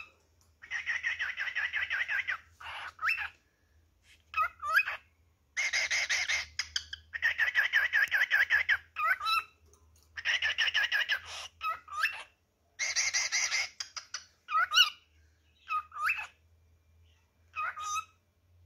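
Male cockatiel singing and calling: bouts of rapid chattering warble, each a second or two long, alternate with short whistles that rise and fall in pitch.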